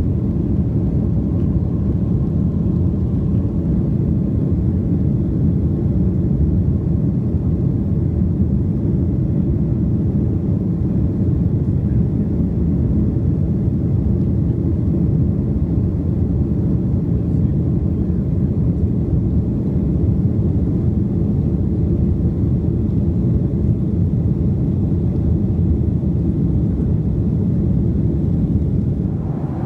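Jet airliner cabin noise from a window seat during the climb after takeoff: a loud, steady rumble of the engines and rushing air.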